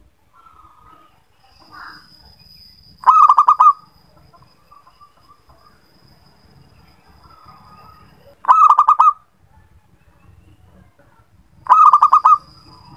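Zebra dove (perkutut) cooing: three loud bursts of rapid staccato notes, a few seconds apart, with fainter coos between them. A thin steady high tone runs behind much of it.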